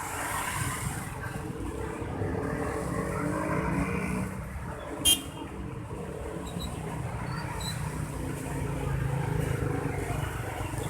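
Road traffic: vehicle engines running and passing, with one sharp click about five seconds in.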